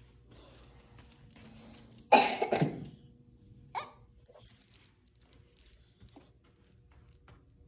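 A person coughs once, loudly, about two seconds in, with a shorter cough-like sound near four seconds. Faint light ticks of a stylus tapping the smart board screen follow.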